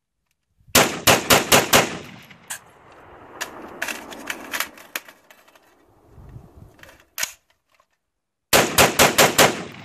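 AR-15 semi-automatic rifle fired in rapid strings. There are two quick bursts of about six shots each, one near the start and one near the end, fired at about five to six shots a second. Echoes trail each burst, and fainter cracks come in between.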